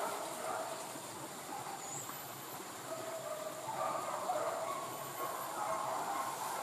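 Forest ambience: a steady high-pitched insect drone over a low, even hiss.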